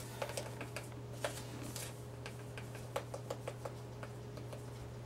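Light clicks and taps of a plastic measuring spoon against a spice shaker as fish seasoning is shaken out into the spoon, with a quick run of clicks about three seconds in. A steady low hum runs underneath.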